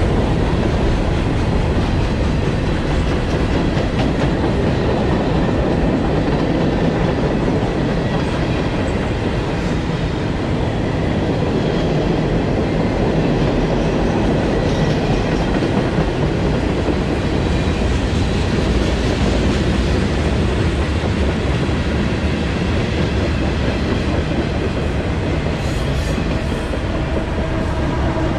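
Freight train rolling past, its cars' steel wheels running steadily on the rails.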